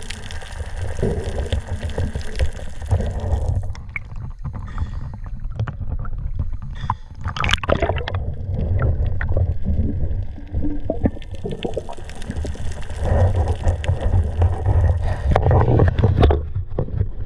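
Underwater water noise picked up through a camera housing: a steady low churning rumble with many small clicks and knocks throughout.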